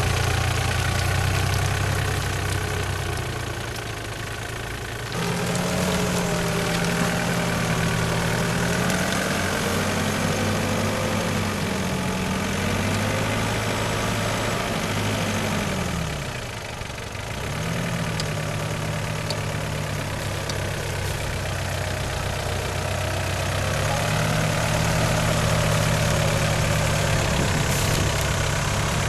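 Off-road SUV engine running under load during a recovery from a rut, its revs shifting up and down. The pitch changes about five seconds in, rises and falls several times, drops briefly about seventeen seconds in, then holds steady.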